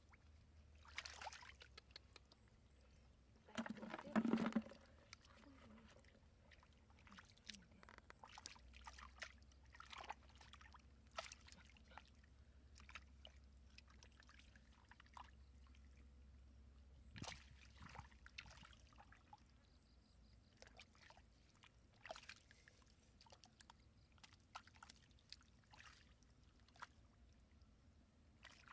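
Faint, irregular sloshing and small splashes of hands groping through shallow muddy water and mud, with one louder burst about four seconds in.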